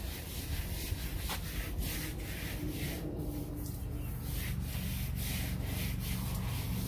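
Water from a pistol-grip garden hose nozzle spraying against a fiberglass boat hull: a rough hiss that comes and goes in uneven surges as the spray sweeps across the surface, rinsing off oven cleaner.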